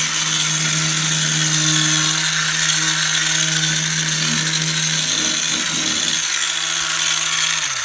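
Handheld electric power tool running steadily at a constant speed, with a steady hum under a loud hiss. It is switched off at the very end, its pitch dropping as it winds down.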